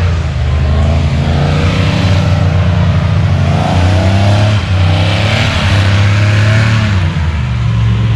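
A motor running steadily and loudly, its pitch wavering up and down.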